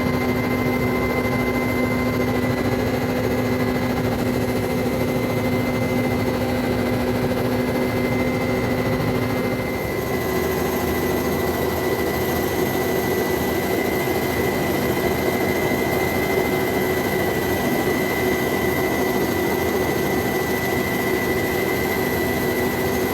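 Firefighting aircraft engines running as a steady drone with a constant high whine; the lower tone shifts a little about ten seconds in.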